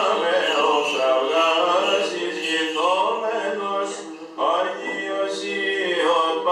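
Byzantine chant sung unaccompanied by male cantors at Orthodox vespers, long melismatic notes with a brief break about four seconds in.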